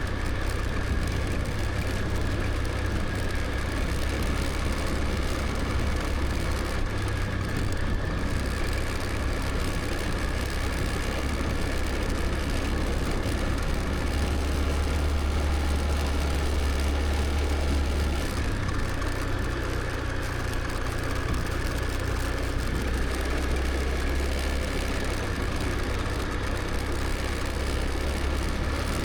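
Motor scooter riding along at a steady pace: the engine running with a heavy low rumble and a thin steady whine above it, changing little.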